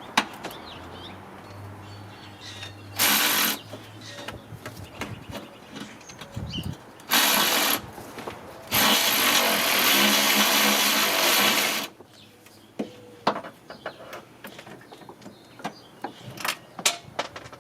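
A power tool running in three bursts, two short ones and then one of about three seconds, with clicks and knocks of tools being handled in between.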